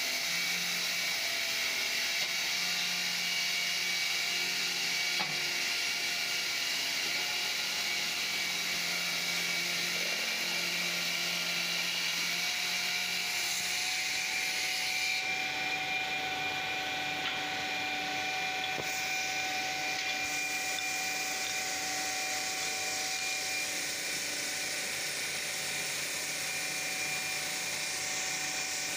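Five-blade mosaic tile-cutting saw running steadily as its blades cut through stone tiles under a cooling water spray, a steady whine over a hissing grind.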